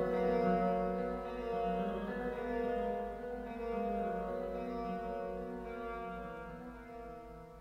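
Music from a 1980s Japanese heavy metal recording: a held chord ringing on and slowly fading out.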